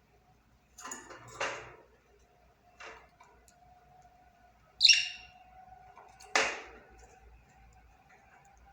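Budgerigar giving a few short, separate calls: scratchy chatters and one bright, clear chirp about five seconds in, the loudest of them.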